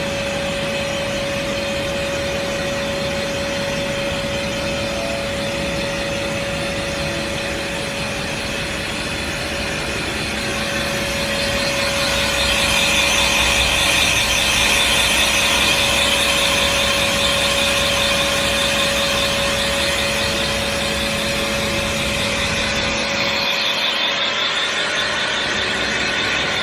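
Mazak VTC-20C CNC machining center running, a steady tone over a hiss that gets louder about twelve seconds in.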